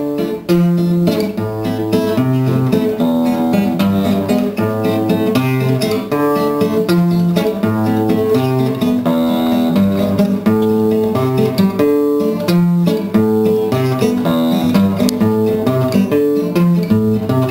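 Solo acoustic guitar with a slotted classical-style headstock, played as a steady instrumental piece of plucked chords over bass notes.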